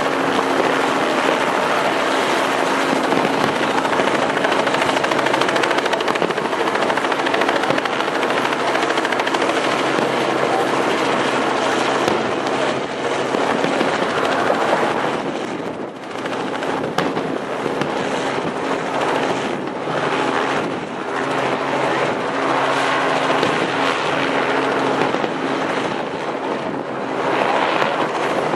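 Aerial fireworks bursting in a rapid, continuous barrage with many sharp cracks, thickest in the second half, over a steady low hum.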